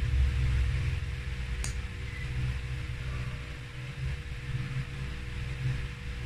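Steady low electrical or fan-like hum with uneven low rumbling, and a single sharp click a little under two seconds in.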